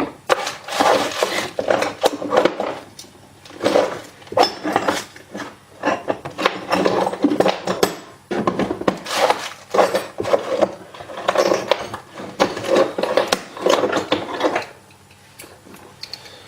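Tools being rummaged through and handled, clattering and banging in repeated irregular bursts, then stopping near the end.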